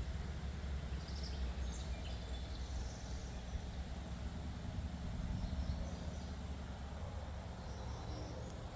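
Outdoor urban ambience: a steady low rumble with scattered short, high bird chirps.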